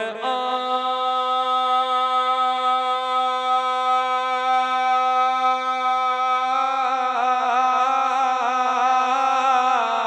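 A man singing a naat unaccompanied, holding one long steady note that begins to waver in melismatic ornament about two-thirds of the way through.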